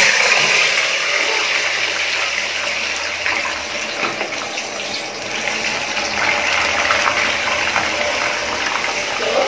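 Sliced raw potatoes going into hot cooking oil in an aluminium pot. The oil breaks into a loud sizzle at once, loudest as the first slices go in, then keeps bubbling and sizzling steadily as the potatoes deep-fry.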